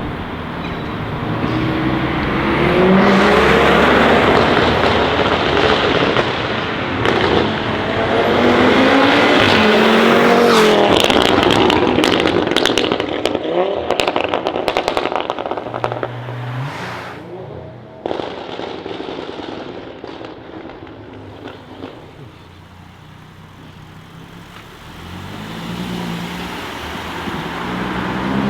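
Audi RS3 8P's turbocharged five-cylinder engine with a straight-pipe exhaust, accelerating hard with revs climbing and dropping, then a burst of crackles and pops from the exhaust around the middle. The sound then fades as the car moves off, and an engine note rises again near the end.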